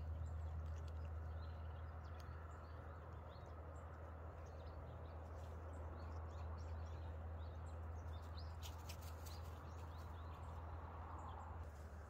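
Outdoor ambience: faint, scattered bird chirps over a steady low rumble, with a few light clicks about nine seconds in.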